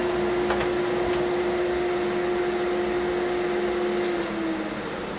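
Electric power sander motor running steadily, then switched off about four seconds in, its pitch sinking as it winds down.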